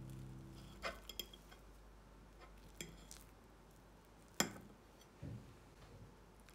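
Cutlery clinking against dishware: a few quiet, separate clinks and taps, the loudest about four and a half seconds in.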